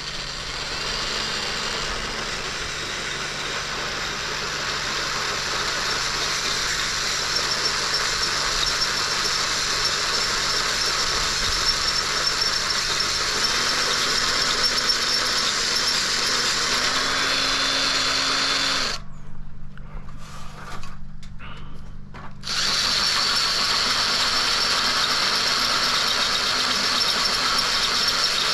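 Power drill running under load as a new drill bit bores a hole. It runs steadily, stops for about three seconds two-thirds of the way through apart from a few brief blips, then runs again.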